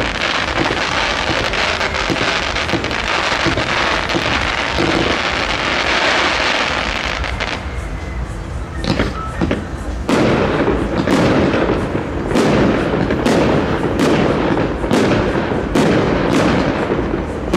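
Fireworks going off: a dense crackle of bursting shells for the first seven seconds or so, a short lull, then from about ten seconds in a rapid series of sharp bangs over steady crackling.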